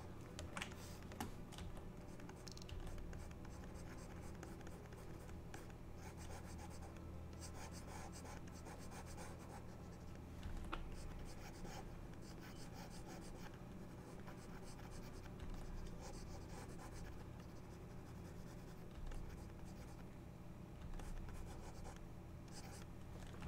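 Faint scratching of a stylus pen drawing strokes on a graphics tablet, in short spells with a few light clicks, over a low steady hum.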